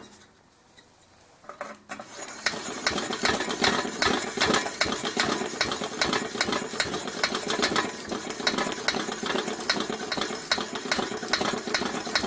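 Coleman Model 220 lantern's fuel tank being pressurized with its built-in plunger pump: a fast run of repeated pump strokes with metallic clicking and scraping. It starts about a second and a half in, after a near-silent pause.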